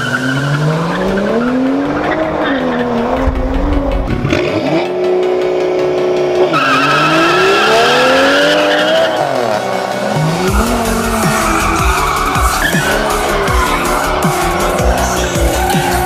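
BMW 135is's N54 twin-turbo inline-six revving up and down hard while the rear tires spin and squeal in burnouts and donuts; the tire squeal grows strong from about six seconds in.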